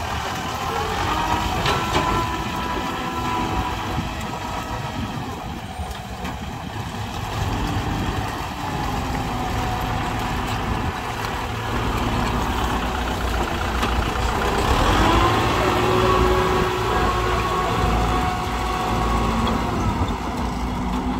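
Heavy diesel engine of construction machinery running steadily, a little louder through the middle.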